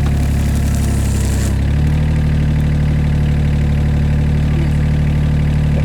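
Takeuchi TB016 mini excavator's diesel engine running steadily as the arm is worked, with a hiss over the first second and a half and a slight change in the engine note just after.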